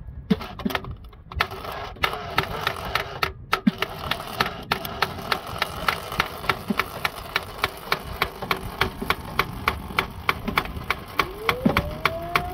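Fiat 127's four-cylinder engine being turned over by its starter motor: a steady whine with regular sharp ticks about four to five a second, the engine not catching. A rising whine comes in near the end.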